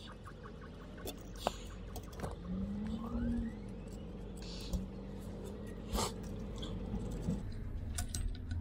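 A few sharp clicks and scrapes of hand cutters being worked on a braided steel tap hose, over a steady low hum with a wavering drone through the middle.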